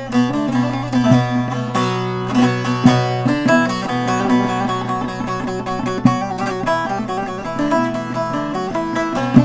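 Short-neck bağlama with a juniper-wood bowl being played: a plucked folk melody over a steady low drone, with a few sharper strummed accents.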